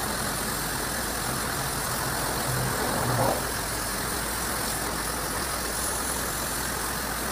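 High-pressure water jet hissing as it sprays against a truck's cab and windscreen, over a steady motor drone.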